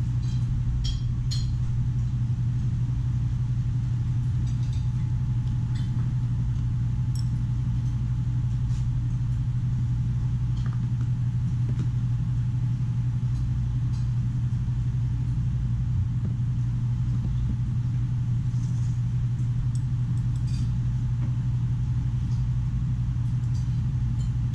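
Steady low machine hum at an even level, with faint light clicks of chopsticks and a spoon against a bowl now and then.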